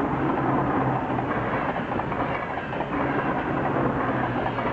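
NS ICMm (Koploper) electric intercity train passing over the level crossing, its wheels clattering over the rail joints.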